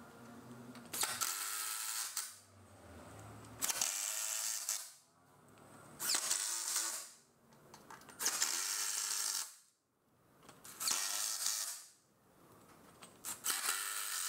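Cordless drill/driver driving screws through MDF slat-support strips into a wooden bed rail, in six short runs of about a second each with brief pauses between them.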